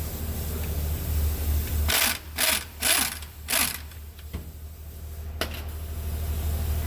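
Half-inch air impact wrench fired in four short bursts about half a second apart, hammering at a jackshaft bolt on the transfer case, with a couple of single clicks after. Under it the M35 truck's engine idles steadily, running its air compressor.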